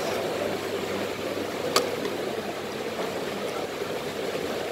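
Steady background din of a hawker centre dining hall, with one sharp click a little under two seconds in.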